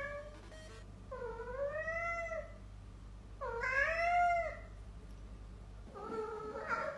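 Black cat meowing: two long drawn-out meows, each rising and then falling in pitch, followed by a shorter meow near the end.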